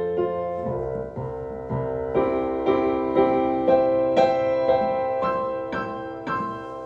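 Piano playing an instrumental passage between sung verses, notes struck about twice a second and ringing out, growing quieter toward the end.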